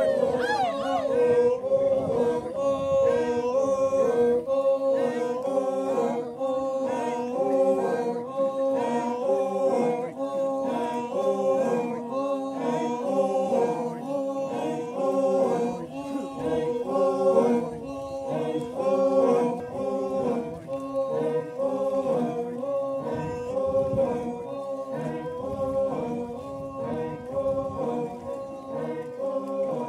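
A large group of voices singing together without accompaniment, in long held notes that step from one pitch to the next.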